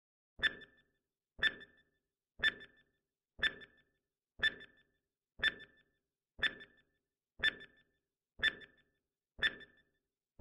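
Countdown timer sound effect ticking once a second, ten sharp ticks each with a short decaying tail, marking the seconds counting down.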